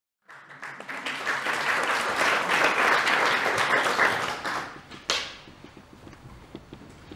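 Audience applauding, dying away about five seconds in, followed by a single sharp knock.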